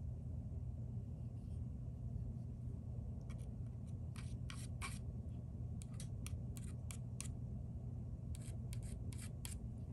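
Short light clicks and ticks of a polymer pistol frame and its small parts being handled and worked, in scattered groups starting about three seconds in, over a steady low hum.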